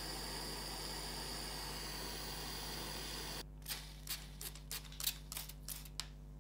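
Small handheld gas torch hissing steadily while heating a brass block to solder a tube into it. About 3.4 s in the hiss cuts off abruptly, and about eight sharp clicks follow over the next two and a half seconds.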